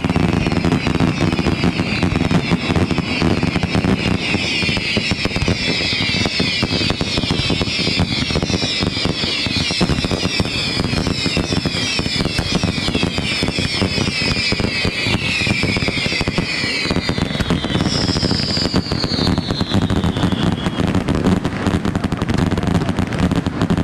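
Fireworks display: many overlapping whistling fireworks, each whistle falling in pitch, over continuous crackling and popping. A fresh volley of higher whistles starts about eighteen seconds in, and the whistling dies away a few seconds later while the crackling carries on.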